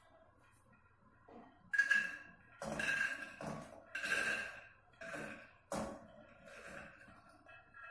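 Yellow peas poured by hand from a glass dish into an empty aluminium pressure cooker, rattling against the metal, which rings. The peas go in as a run of sudden surges, about five, starting a couple of seconds in.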